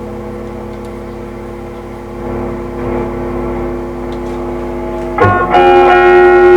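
Electric guitar played through an original Electro-Harmonix Big Muff pedal into a bench amplifier: a chord rings and slowly fades, then a louder chord is strummed about five seconds in and sustains. The repairer takes this tone for the pedal in bypass mode.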